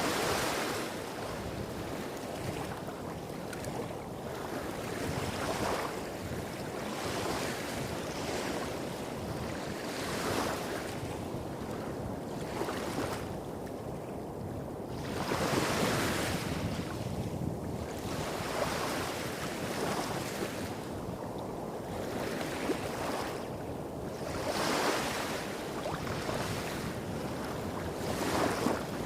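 Small waves breaking and washing on a beach, each wash a swell of hiss every few seconds, over a steady low rumble of waves hitting rocks further off.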